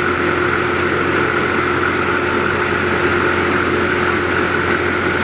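A grain-processing machine, a wheat cleaner or feed grinder, running steadily: a constant mechanical drone with a steady whine over a low hum.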